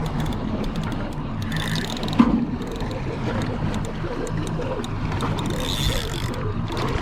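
Boat engine idling with a steady low hum, with scattered sharp clicks and one loud knock about two seconds in.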